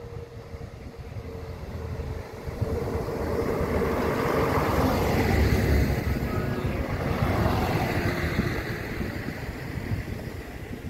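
A train approaching, passing close by and moving away: a rush of wheel and running noise that builds for about five seconds, is loudest in the middle, then fades.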